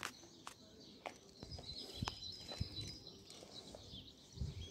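Small birds chirping and twittering, with a few soft knocks.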